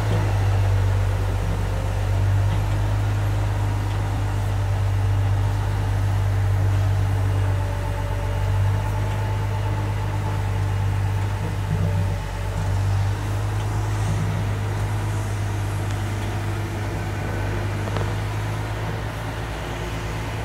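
Steady low mechanical drone of a Boeing 777-300ER being pushed back, heard right at the nose gear and tug, with no clear rise or fall in pitch.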